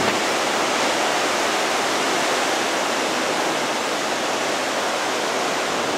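Heavy wind-driven rain and severe thunderstorm winds of a derecho, a steady loud hiss.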